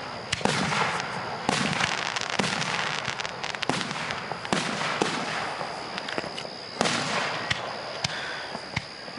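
Aerial fireworks shells bursting one after another, about eight sharp bangs at irregular intervals, each trailing off in a noisy rumble.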